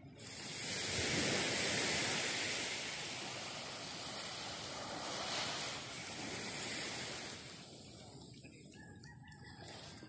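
Small waves on a calm sea washing up the beach: a hiss of surf that swells up suddenly, is loudest about a second or two in, and eases off after about seven seconds.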